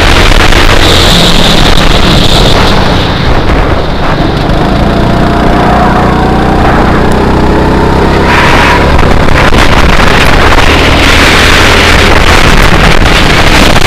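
Go-kart engine running hard, heard from the driver's seat. It eases briefly about three to four seconds in, then rises in pitch through the middle as the kart accelerates again.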